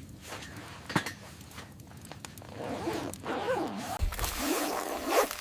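A zipper being pulled, in a few short rasping strokes, with handling of gear around it.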